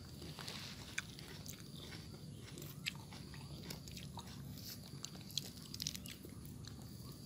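Faint, scattered small clicks and crunches of a baby macaque biting and chewing bits of grapefruit pulp, a few sharper snaps standing out.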